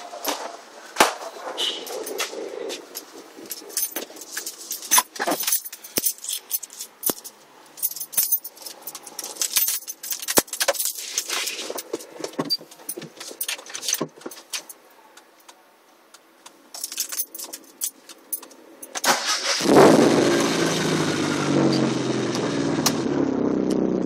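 Scattered clicks, knocks and jingling as someone gets into a boxy Mitsubishi Lancer. About twenty seconds in, the car's engine starts and settles into a steady idle.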